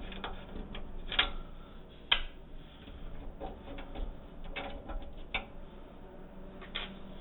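Scattered light clicks and taps of a PC case being handled, the sharpest about a second and two seconds in, with a few more near the middle and end.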